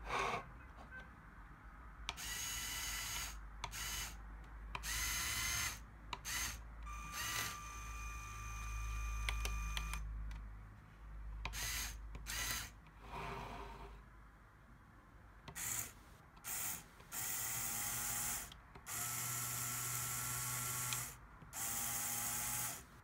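LEGO Power Functions electric motors whirring through the Technic chassis's gear trains, switched on and off from the IR remote in a series of bursts, each lasting from a fraction of a second to about two seconds.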